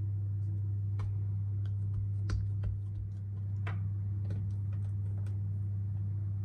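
Scattered light clicks and taps as hands shape soft donut dough on a smooth work surface, about half a dozen at uneven intervals, over a steady low hum.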